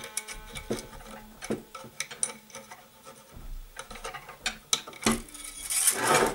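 Scattered small metallic clicks and scrapes of a steel string wire, cut from motorcycle cable, being threaded into the string holder of a handmade wooden gusli, with a brief louder rub near the end.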